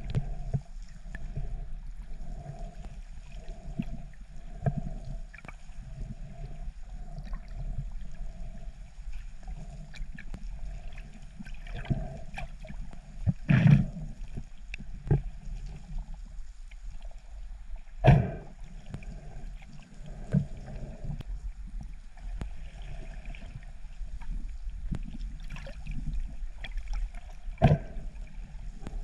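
Water moving around a camera held just below the surface: a low, uneven sloshing and gurgling. Sharp knocks cut through it about halfway in, again a few seconds later, and once near the end.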